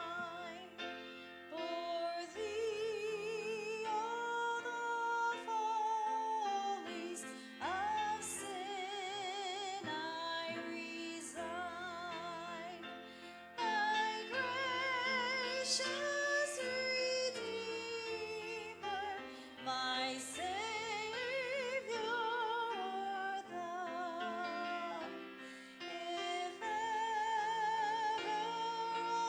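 A woman singing a solo with a wide vibrato into a handheld microphone, over a held instrumental accompaniment.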